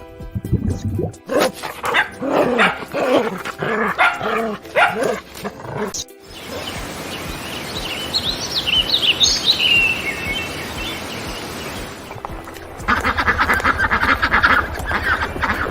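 A run of different animal calls: pitched calls repeated about twice a second, then a steady noisy stretch with high chirping, then rapid buzzy calls over the last few seconds.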